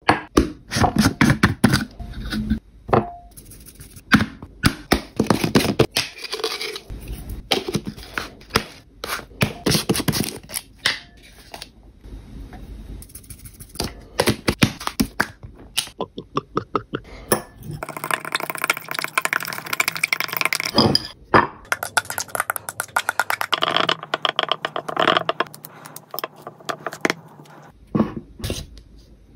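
Close-up kitchen handling sounds: a glass mixing bowl picked up and set down, with many quick taps, clinks and scrapes as ingredients go in and are stirred against the glass. A steady hum runs in two stretches past the middle. Near the end a plastic tub of frozen ice cream is handled.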